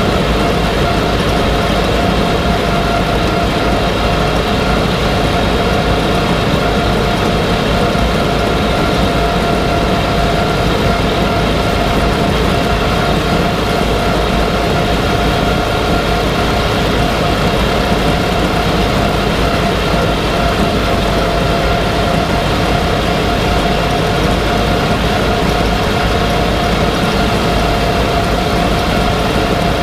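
Deutz-Fahr KM 22 CR mower running steadily as it cuts standing grass, its drive giving a steady whine over the tractor engine's drone.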